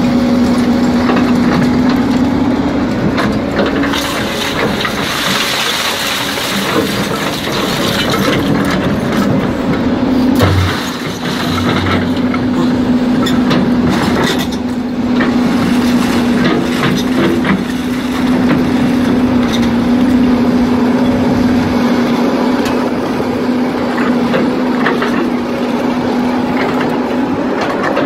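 Doosan DX300LC excavator's diesel engine and hydraulics running with a steady hum while its hydraulic magnet works a pile of steel scrap, with scattered clanks and rattles of metal.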